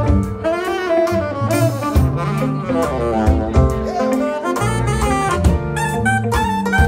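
Live soul-jazz band with a saxophone playing a solo of quick, winding runs over bass, drums and electric guitar.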